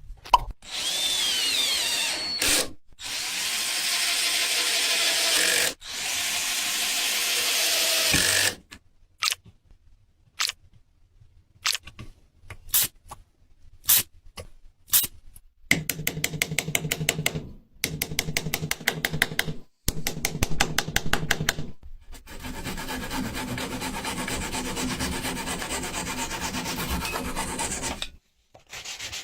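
Woodworking power tools and hand work on wood in quick succession: several seconds of a power tool running against wood, then a run of separate sharp knocks, then a fast rhythmic machine chatter, then a steady sanding-like rasp.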